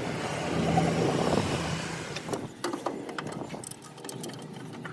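A motor vehicle engine running, loudest in the first two seconds and then fading away, with a few light clicks near the end.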